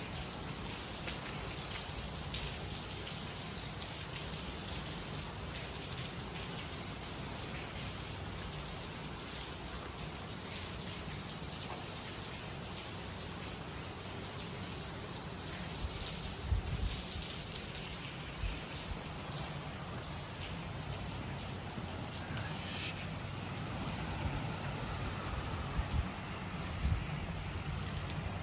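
Steady rain falling, with a few dull low thumps in the second half.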